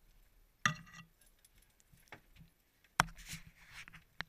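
Gear handled on a boat deck: two sharp knocks about two seconds apart, the second followed by a metallic rattle and clinking, and a lighter knock near the end.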